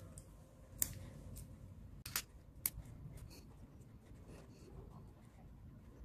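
Metal screwdriver tip scraping and clicking against the terminal of a plastic rocker switch, working off the charred crust on it. A few sharp clicks stand out, one about a second in and two or three more just after two seconds, with softer ticks between.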